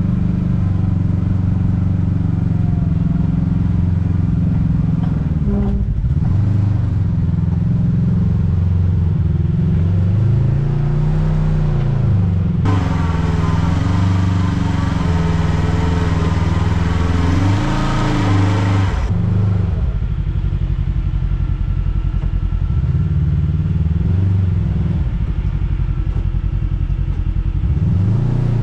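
Side-by-side UTV engine running hard on a trail climb, its pitch rising and falling as the throttle is blipped. For several seconds in the middle a louder, harsher high-revving engine sound cuts in and then stops abruptly.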